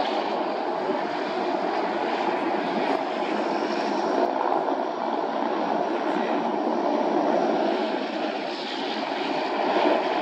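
Propeller airplane's engine running steadily in flight, an even engine and propeller sound with a faint steady tone and no clear rise or fall.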